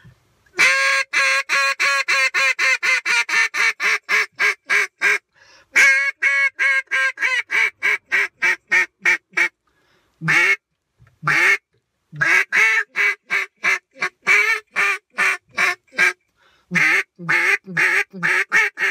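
Homemade Drake Storm double-reed duck call blown in a highball (hail call): loud strings of rapid quacks, each opening with a longer drawn note, repeated four or five times with short breaks between.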